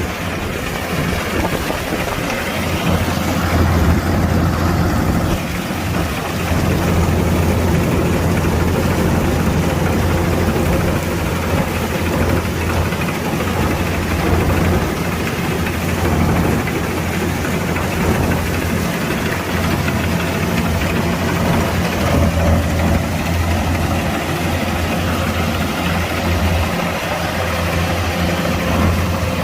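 Kubota DC-105X combine harvester's diesel engine running steadily with a low, even hum, with a steady rushing noise of the machine over it.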